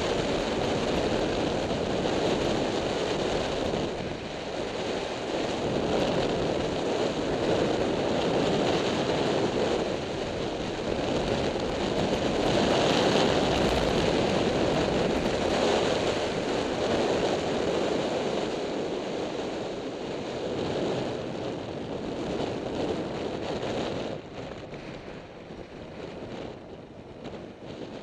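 Wind rushing over the microphone of a camera riding on a moving motorcycle: a steady, heavy rushing noise that eases noticeably about 24 seconds in.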